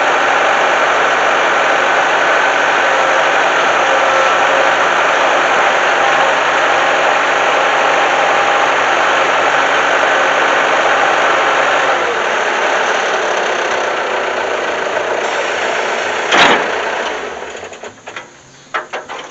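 An engine running steadily at a constant speed, easing slightly about twelve seconds in, with one sharp loud burst near the end before the sound dies away, followed by a few clicks.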